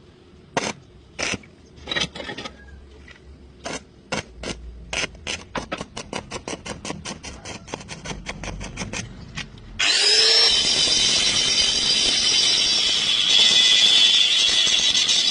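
Short sharp strokes, a few at first and then quickening to about five a second. About ten seconds in, a power tool starts abruptly with a quick rise in pitch and runs loud and steady, its noise sitting high.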